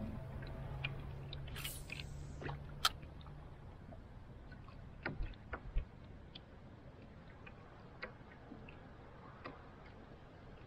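Faint, scattered small clicks and taps from handling a spinning rod and reel in a plastic kayak, irregular, with a few sharper ticks. A low hum under them stops a few seconds in.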